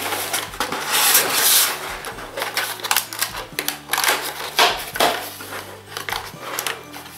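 A small cardboard box from an advent calendar being opened and handled: a rustling scrape of card about a second in, then many light clicks and taps of fingers on the box.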